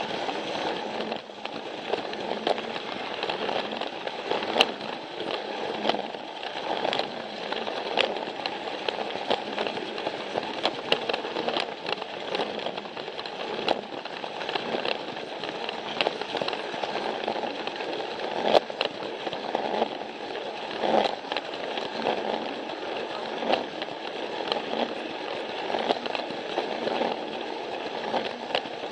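Plarail battery-powered toy train running along plastic track: a steady rattling whir from its motor and wheels, with irregular sharp clicks as it passes over the track joints.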